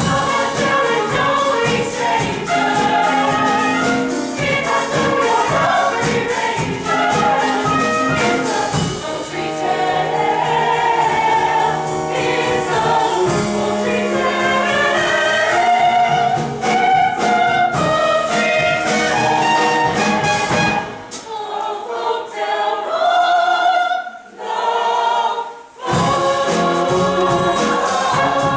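Group of voices singing a musical-theatre number together over instrumental accompaniment. About three-quarters of the way through the sound thins and drops briefly in two short dips before the full sound returns.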